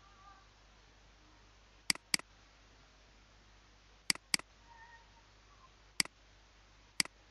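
Computer mouse button clicking: two quick double-clicks, about two seconds apart, then two single clicks a second apart, over a faint steady hum.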